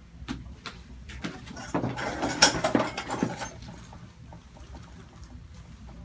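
Neck joints cracking in a chiropractic adjustment: a scatter of short clicks and pops, the loudest cluster about two and a half seconds in, followed by a quieter stretch.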